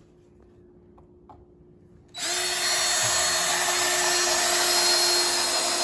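Power drill boring a pilot hole into the wood of a bed frame. It starts about two seconds in and runs at a steady speed, after two faint clicks.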